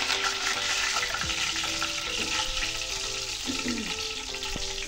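Hot oil sizzling in a small frying pan as freshly washed curry leaves hit a tadka of garlic, dried red chillies and cumin; the sizzle is strongest at the start and eases off gradually.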